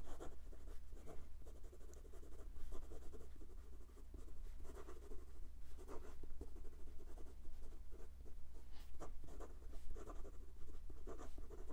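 Fine steel nib of an Asvine V169 fountain pen writing quickly in cursive on notebook paper: an irregular run of soft pen strokes across the page.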